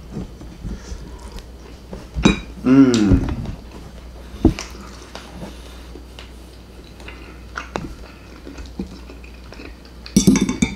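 A man eating steak: chewing, with a short hummed "mmm" of enjoyment about three seconds in, and metal fork clinks against a ceramic plate near the start and again near the end.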